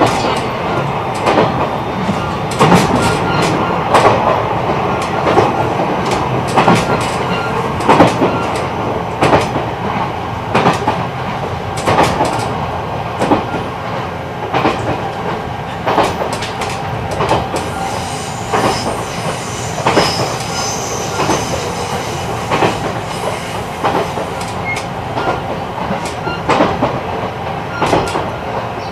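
E129 series electric multiple unit running along the line, its wheels clicking and clattering over rail joints at an uneven rhythm under a steady rumble. A faint high squeal comes in briefly around the middle.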